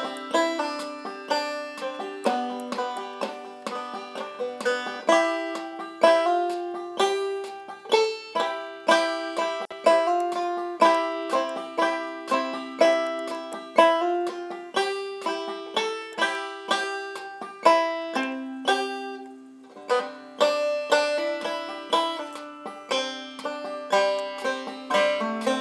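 A banjo being picked, a quick, steady run of plucked notes, with a short lull about two-thirds of the way through.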